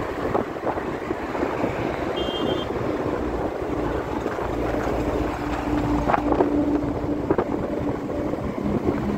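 Steady rumble and rush of a vehicle travelling along a road, with wind buffeting the microphone; a steady hum in the middle and a short high tone about two seconds in.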